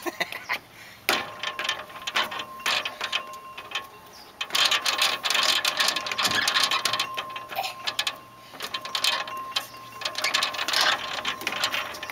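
Footsteps clattering and rattling on a playground's slatted metal bridge deck: scattered knocks at first, then two dense stretches of clatter, the first about four seconds in and the second about a second and a half before the end.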